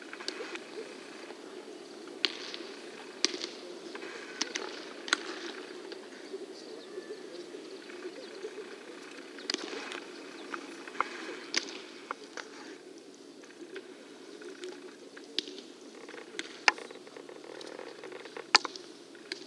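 Baseballs popping into leather gloves during a game of catch: about ten sharp pops at irregular intervals over steady low background noise.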